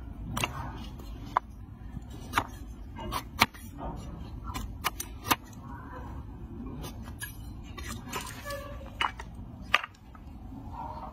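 A large hoof-trimming blade chopping through a donkey's overgrown, rotten hoof horn against a wooden stool, giving a series of sharp, irregular knocks, most of them in the first half.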